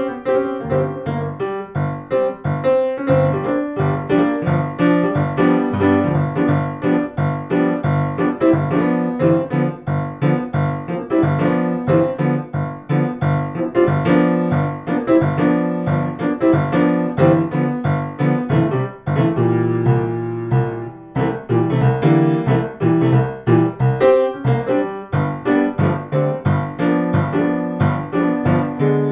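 Background blues piano music, a steady run of struck keyboard notes, easing briefly into a held chord about two-thirds of the way through.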